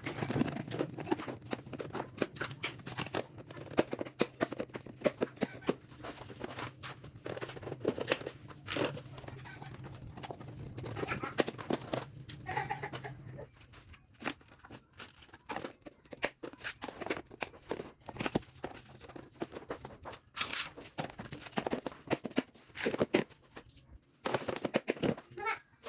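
Irregular clicks, knocks and rustling of objects being handled, over a low steady hum that stops about halfway through.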